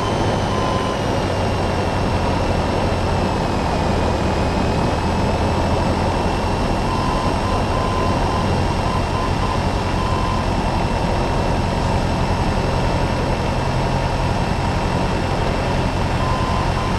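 Cessna 172N in cruise flight: the steady drone of its four-cylinder Lycoming piston engine and propeller, mixed with airflow noise.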